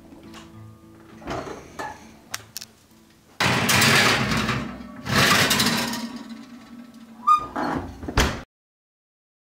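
A metal baking tray scraping along an oven rack as it is slid in, in two loud pushes, then a sharp click and a low thump as the oven door is shut; the sound cuts off right after. Soft acoustic guitar music fades out at the very start.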